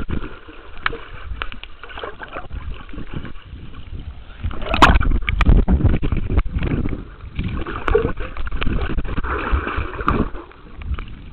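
Water sloshing and gurgling around a camera held underwater, with knocks and a loud splash about five seconds in as it comes up through the surface.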